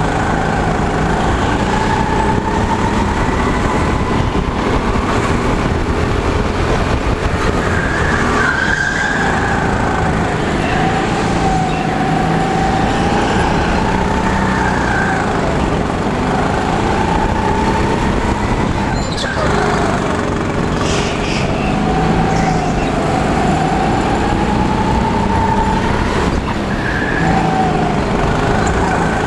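Go-kart motor heard from the driver's seat during a lap, its pitch rising and falling as it speeds up and slows again. Two sharp knocks come about eight and nineteen seconds in.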